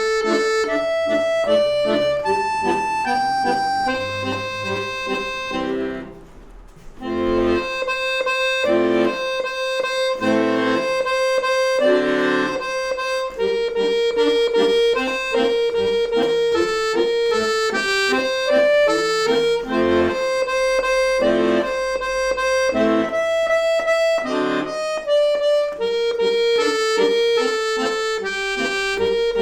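Accordion playing a light melody over chordal accompaniment, with a short pause about six seconds in.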